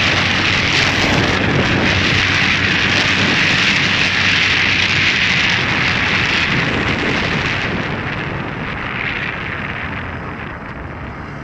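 Wind rushing over the microphone of a moving motorcycle, a steady hiss over the low hum of the bike's engine. It eases off over the last few seconds.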